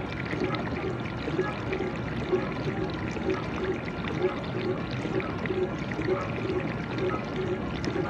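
GE dishwasher in its wash phase: water spraying and sloshing inside the tub, steady, with a soft pulse about twice a second.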